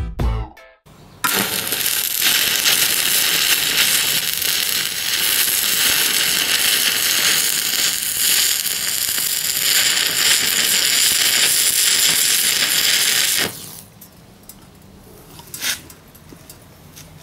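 After a second of music, a stick-welding arc from a homemade single-transistor welding inverter burns on a 2 mm electrode for about twelve seconds. It gives a loud, steady crackling hiss and cuts off suddenly when the arc is broken. A single sharp click follows near the end.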